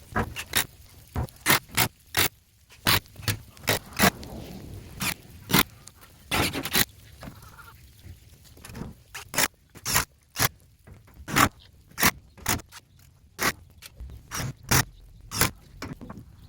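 An irregular series of short, sharp knocks and clicks, about two a second, with quieter scraping between them.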